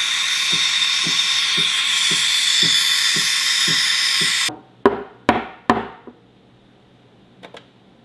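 The Gemilai CRM3605 espresso machine's steam wand hisses steadily into a pitcher of milk, with a faint low pulse about twice a second underneath, and cuts off about four and a half seconds in. Then come three sharp knocks, which fit the milk pitcher being tapped on the counter to settle the foam.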